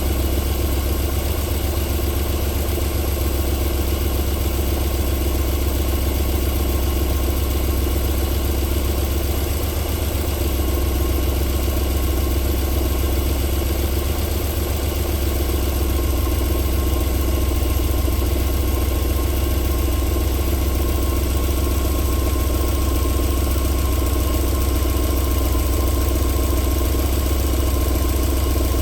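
Alfa Romeo 3.0 24-valve V6 idling steadily while warming up after a cold start.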